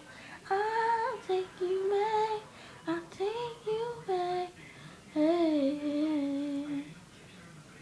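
A woman singing unaccompanied, a slow melody of held notes joined by slides, which fades out about seven seconds in.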